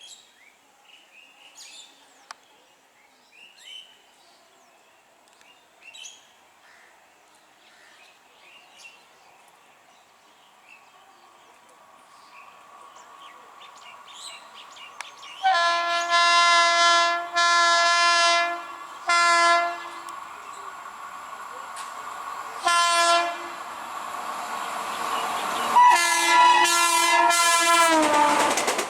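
Faint bird chirps over quiet, then the rumble of an approaching Indian Railways express train grows and its locomotive sounds a multi-tone horn in several blasts: two long, two short, then a long one that drops in pitch as the locomotive passes. The clatter of the passing train begins at the very end.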